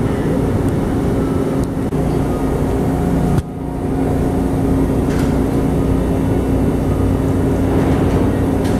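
Steady low drone of heavy machinery with a constant hum. It drops off sharply about three and a half seconds in and builds back within half a second.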